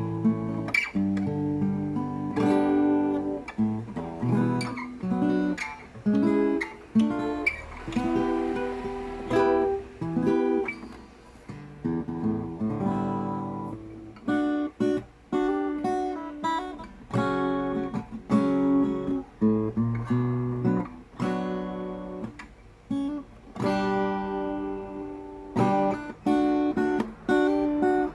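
RJ Manila guitar played unplugged, with no amplifier: a run of strummed chords and picked notes, each ringing out briefly before the next.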